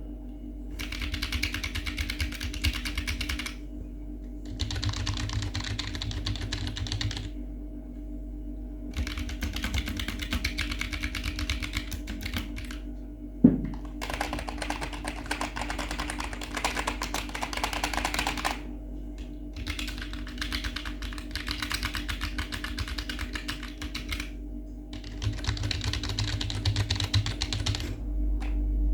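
Rapid typing on a Keychron K3 low-profile mechanical keyboard with Gateron brown switches, in about six bursts of a few seconds each with short pauses between. One sharp knock about halfway through.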